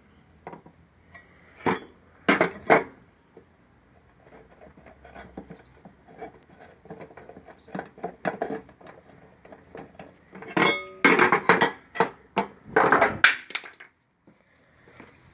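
Irregular metal clanks, knocks and scraping from an automatic washing machine's transmission being worked by hand, loudest in a dense run of knocks about two-thirds of the way through. The uploader takes the noise for a worn or dried-out bearing.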